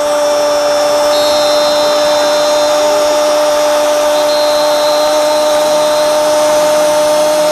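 Football commentator's drawn-out 'gol' cry held on one steady note, loud over the noise of the stadium crowd.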